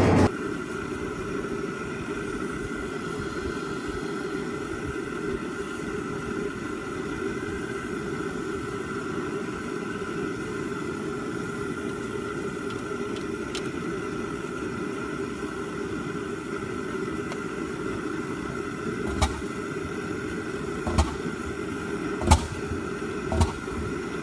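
Horizontal single-cylinder Fairbanks Morse stationary engine being started. A steady low hum is heard at first. About two-thirds of the way in come sharp firing beats, a second or two apart and coming quicker near the end, as the engine catches.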